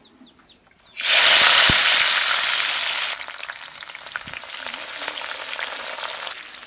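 Sliced onions hit hot cooking oil in a kadai, setting off a sudden loud sizzle about a second in. After a couple of seconds it settles to a steady, quieter frying hiss as the onions begin to fry.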